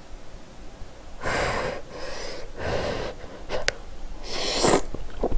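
Spaghetti slurped into the mouth in three drawn-in slurps about a second and a half apart, the last the loudest, with a couple of light clicks between them.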